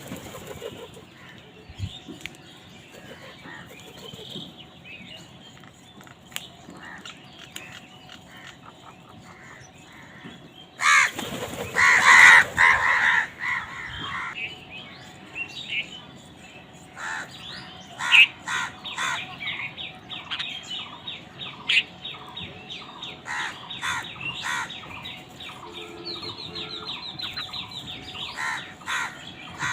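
Several crows cawing. The calls are faint and scattered at first, with a loud, harsh cluster about eleven seconds in, followed by a long run of short calls in quick succession.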